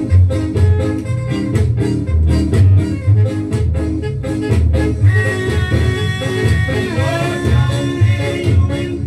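A Jamaican ska record playing from a vinyl 7-inch single, with a bouncing bass line and a steady offbeat rhythm. A melody line with singing comes in about five seconds in.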